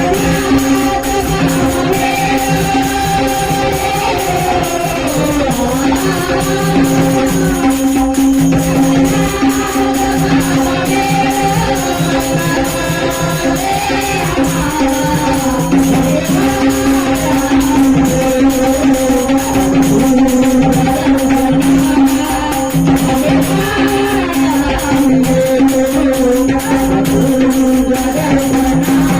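Instrumental passage of a Marathi bhajan: dholki drumming with jingling hand percussion over a steady held low note and a wandering melody, continuous and loud throughout.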